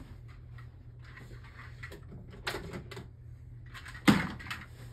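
Plastic Beyblade launchers being rummaged through and handled: scattered clicks and rustles, with a sharp clack about four seconds in, over a faint low hum.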